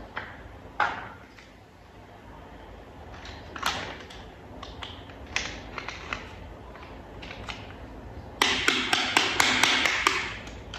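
Small plastic toy parts being handled and fitted: scattered clicks and taps. Near the end comes a louder run of rapid clicking, about five clicks a second, lasting about two seconds.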